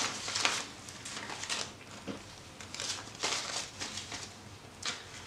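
Paper banknotes rustling and crinkling as they are flipped through and handled, in irregular short rustles with the strongest ones near the start, about three seconds in and near the end.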